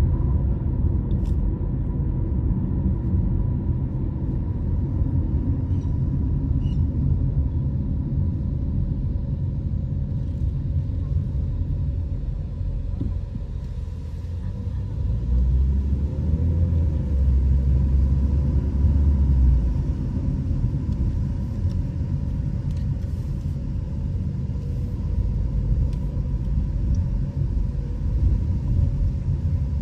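Car driving, a steady low rumble of engine and road noise with a faint steady high tone over it; the rumble grows deeper and louder for a few seconds midway.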